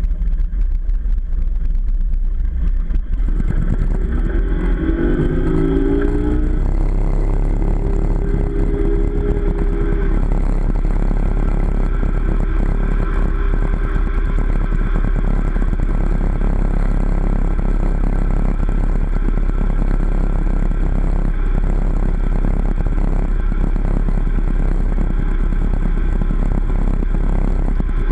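Motorboat engine pulling a water skier up out of the water. About three seconds in it opens up, the pitch rising for a few seconds, then it runs steadily at towing speed with the rush of the wake.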